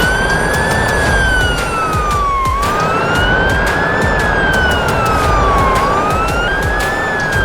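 Emergency-vehicle siren in a slow wail, its pitch rising and falling about once every three seconds.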